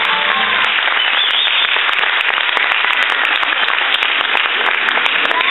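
Audience applauding steadily in a hall, a dense crackle of many hands clapping; the last of the dance music stops under it within the first second.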